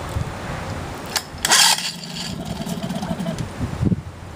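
Cold start attempt on a 1972 Evinrude 4 hp Lightwin two-stroke twin-cylinder outboard that has sat unused for a few years. The recoil starter rope is pulled once, about a second and a half in, and the engine turns over and fires briefly without settling into a steady run.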